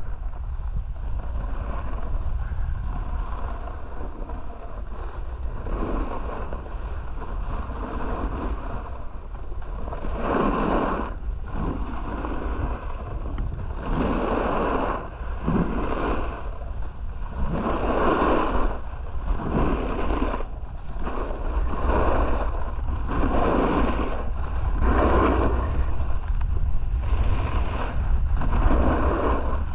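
Wind buffeting the camera's microphone, with a snowboard's edge scraping and hissing across groomed snow. From about ten seconds in, the scraping comes in repeated surges, one every second and a half to two seconds, as the board carves turn after turn.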